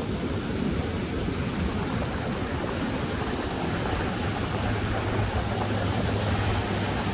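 Ocean surf breaking and washing up a sand-and-cobble beach: a steady rushing wash of water, with a low steady hum underneath from about four seconds in.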